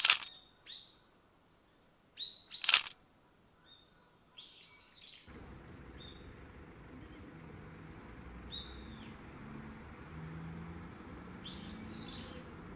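Birds calling: two loud, shrill calls a little under three seconds apart, with smaller chirps between them. About five seconds in, the background changes suddenly to a steady low rumble and hum, and a few more chirps come over it.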